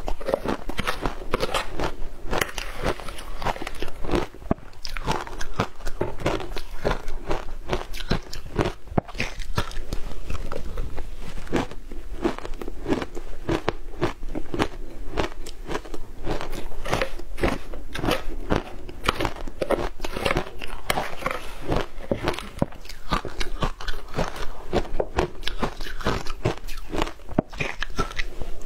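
A person biting and chewing frozen matcha ice, a dense run of crisp crunches and crackles that goes on without a break.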